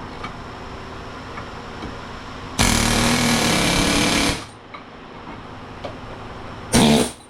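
Air hammer run in two bursts, about two seconds and then a short one near the end, driving a wheel bearing race out of the hub.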